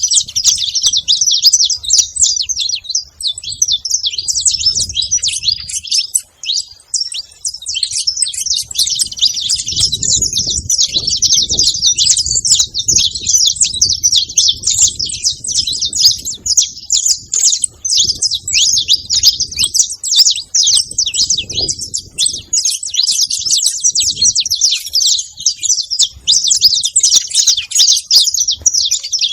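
Saffron finch chirping in a continuous high-pitched chatter of rapid notes, with a short lull about six seconds in.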